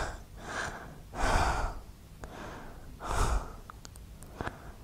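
A woman breathing heavily: two loud, rushing breaths, about a second in and about three seconds in, with a few faint clicks near the end.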